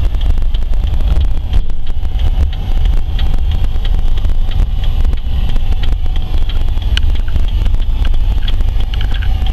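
Van driving on the road: steady, heavy low road-and-engine rumble with wind noise, and frequent light clicks and rattles throughout.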